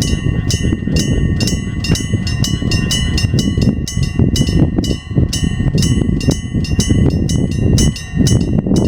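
Electric bell of a level crossing on the Hokuriku Railroad Ishikawa Line, ringing in rapid repeated strokes to warn that a train is coming. A train's low rumble runs underneath, dipping briefly about five seconds in and again near the end.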